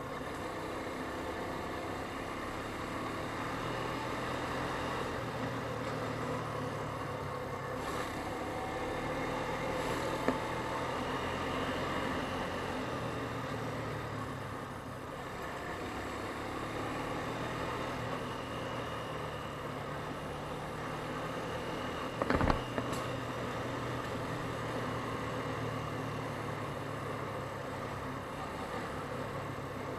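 ATV engine running steadily while riding along a dirt trail, its note rising and falling with the throttle. A single sharp knock about 22 seconds in.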